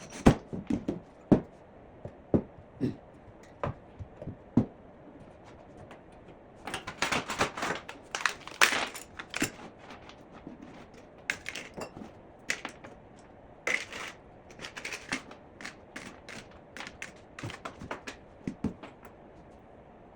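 Handling noises: a string of sharp knocks and taps, with a stretch of rapid crackling clatter about seven to ten seconds in.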